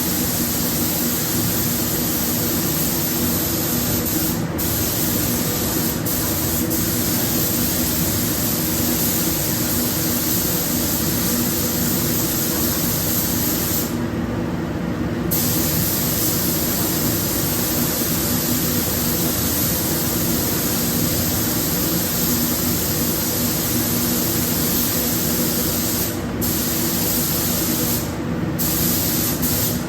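Air spray gun spraying paint: a steady, loud hiss of compressed air that stops briefly a few times as the trigger is let off, over a steady low hum.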